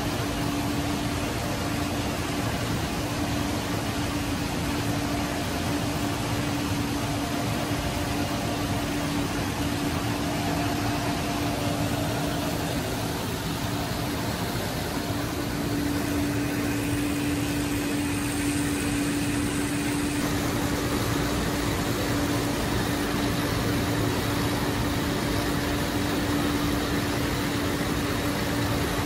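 Potato harvester running while lifting potatoes: its conveyor chains and drive make a steady mechanical clatter, along with the pulling tractor's engine. A constant hum runs underneath and drops out for a few seconds about halfway through.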